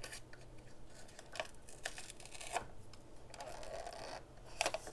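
Faint handling noises from 120 roll film being fitted into a camera: the backing paper and take-up spool rustle and give a few soft clicks and scrapes, with a small cluster near the end.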